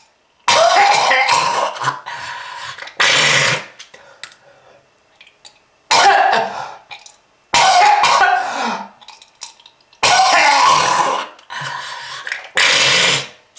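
A person coughing hard in about six harsh, sudden fits a second or two apart, each trailing off, in a smoker's cough.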